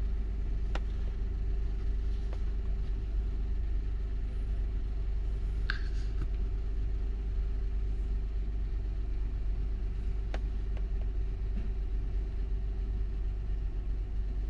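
A 2010 Honda Odyssey's V6 engine idling steadily, a constant low rumble with a steady hum, after the O2 sensor swap and code clearing. A few faint clicks sound over it.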